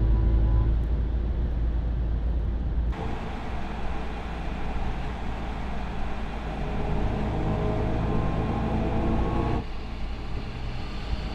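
Mercedes-AMG EQS 53 electric car driving: a steady rumble of road noise under a faint whine that rises in pitch as it speeds up. The sound changes abruptly twice, where separate driving clips are cut together.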